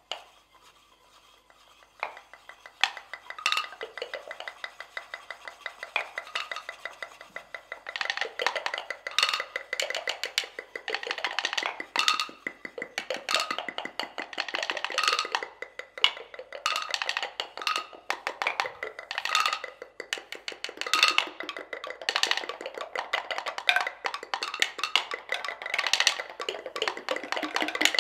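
Ensemble of seven wooden mortars played as percussion with their pestles: a dense patter of fast clicks and taps that starts about two seconds in and thickens about eight seconds in, with louder strokes standing out roughly once a second.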